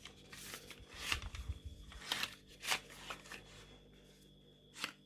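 Handling noise of boxed colouring pencils and their packaging: a run of light rustles and clicks over the first three seconds or so, with a dull bump among them, then a single click near the end.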